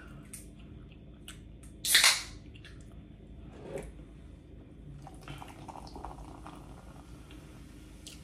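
Close-up eating clicks and small crunches, with a short loud hiss about two seconds in. From about five seconds a canned diet cola is poured into a ceramic mug, fizzing with a fine steady hiss.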